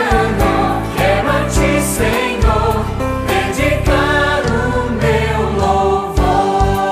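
A choir singing a Portuguese-language Christian worship song over instrumental accompaniment with a steady beat.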